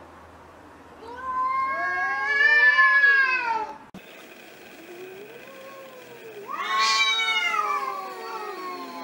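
Cats fighting and yowling. A long, loud yowl starts about a second in and breaks off abruptly near four seconds. A low moan follows, then a second loud yowl near seven seconds that slides down in pitch.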